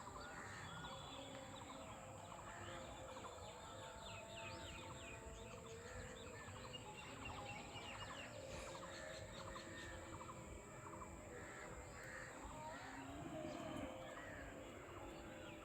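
Birds chirping and calling, many short overlapping calls, over a faint steady background.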